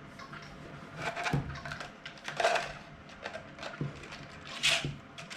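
3D-printed plastic cryptex rings and parts clicking and clattering as they are handled and set down, in irregular knocks with a few louder rattles about one, two and a half and nearly five seconds in.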